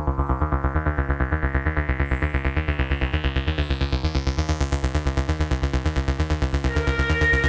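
Eurorack modular synthesizer playing a fast repeating pulse pattern, about eight notes a second, over a steady low bass. Its filter slowly opens, so the sound grows steadily brighter. Near the end, steady high tones join in.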